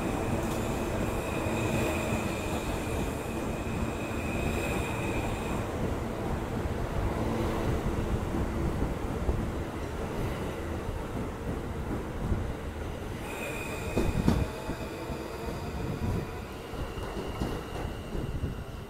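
R160 subway train pulling out along the platform and moving away. Its wheels and motors run with a steady rumble, and a single high wheel squeal is heard for the first few seconds and again in the last third. A few sharp clacks over the rail joints come about two-thirds of the way in.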